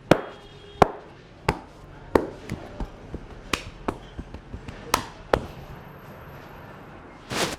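A masseur's hands slapping and chopping on the head and neck in an Indian head massage. The sharp strikes come irregularly, about one every half second to second, thin out after about five seconds, and are followed near the end by a short, noisier rubbing burst.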